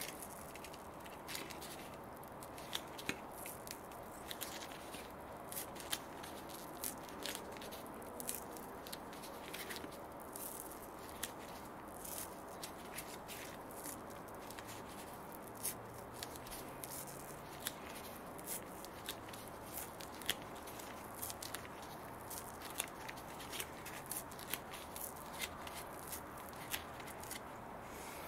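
Glued black gasket strip being peeled by hand off a plastic speaker mount, the heat-softened adhesive letting go in many small irregular crackles and ticks over a faint steady hiss.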